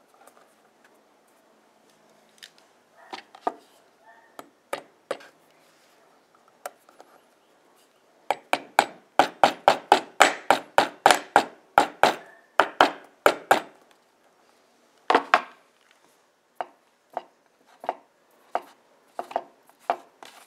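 Light hammer strikes on a steel coil spring set on pliers' jaws, fitting the spring to the pliers. A quick run of about three taps a second lasts several seconds, followed by slower single taps.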